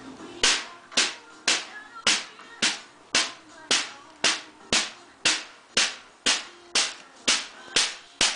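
Steady, even hand slaps, about two a second, sixteen in a row, each sharp and dying away quickly.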